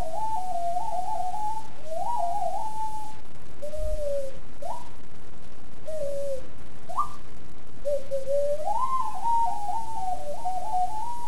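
Extended-range sweet potato ocarina playing a single-line melody of pure, whistle-like notes in short phrases, with a couple of quick upward slides in the middle and a longer, rising phrase near the end. A steady hiss runs underneath.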